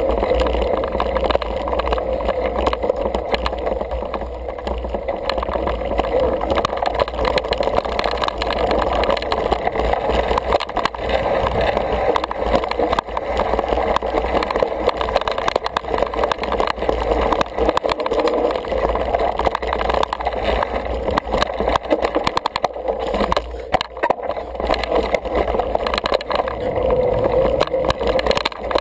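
Single-speed 29er mountain bike rolling over a dirt singletrack, heard through a ride-along action camera: a steady rushing noise with a low rumble and constant small knocks and rattles as the bike bumps over the ground.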